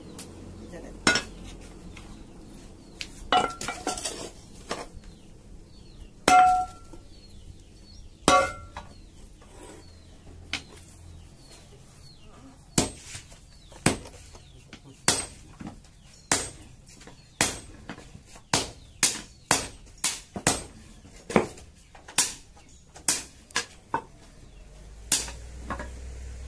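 Blacksmith's hand hammer striking a steel blade, with a metallic clink on each blow. A few scattered blows come first, some ringing on briefly, then a steady run of about two blows a second from about halfway.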